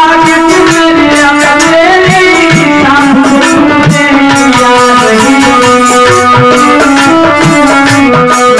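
A Hindi devotional bhajan performed live: a man singing a melody over instrumental accompaniment, with steady hand-drum beats.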